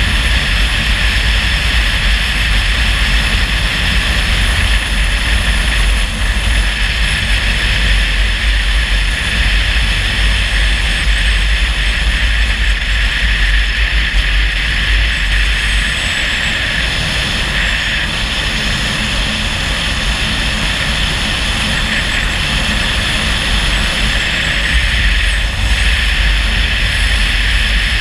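Car driving steadily along a road: continuous tyre and engine noise with a deep rumble, unchanging throughout.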